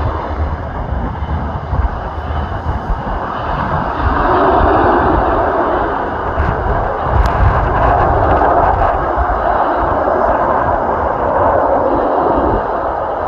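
Engine noise of an arriving Antonov cargo plane, a steady drone that grows louder about four seconds in.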